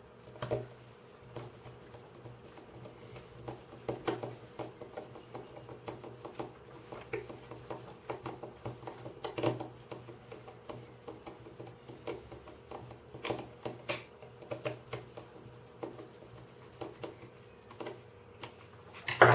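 Small 3D-printed plastic puzzle pieces being handled and fitted into a partly assembled Dino 3x3x3 cube: irregular light clicks and taps, with one louder clack near the end. A faint steady hum runs underneath.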